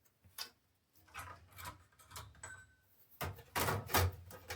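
Clicks and clatter of a small-form-factor desktop PC's top cover being fitted back onto the case, a single click about half a second in, then light handling knocks, and louder rattling and knocking near the end.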